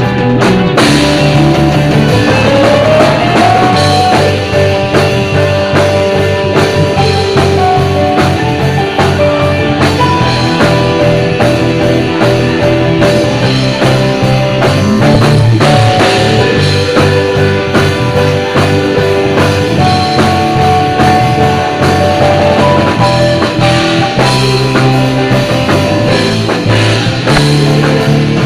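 A band plays a rock-style worship song on drum kit and guitar, with no clear singing. A note slides upward about two to four seconds in.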